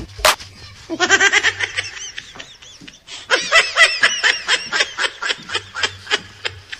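Laughter in quick rhythmic bursts, about a second in and again from about three seconds in to near the end, after a sharp click or two right at the start.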